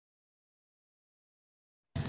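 Dead silence, with a brief sound cutting in right at the very end.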